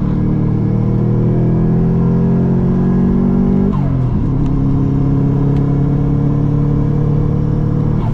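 Subaru WRX's turbocharged flat-four engine heard from inside the cabin, pulling in gear with the revs slowly rising. A little under four seconds in the pitch drops sharply at a gear change, then climbs again through the next gear.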